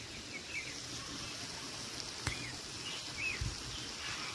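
Quiet outdoor ambience with a bird chirping briefly a few times, and a single sharp click a little over two seconds in.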